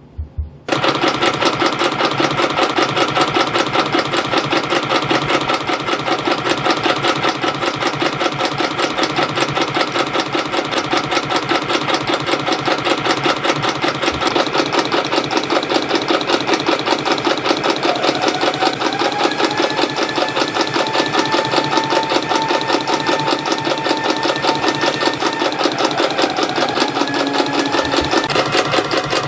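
CNC spring coiling machine starting up and running at speed, feeding and coiling 0.3 mm wire into variable-pitch compression springs: a fast, even mechanical clatter with a steady whine over it. A second, higher tone comes in about two-thirds of the way through and fades near the end.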